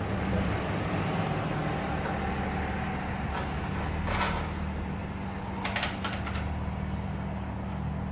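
Steady low electrical hum, with a few short clicks and clatters of small metal parts and tools being handled about four and six seconds in.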